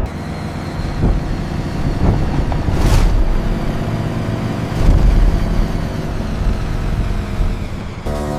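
Steady low mechanical rumble with several short whooshes, the strongest about three seconds in.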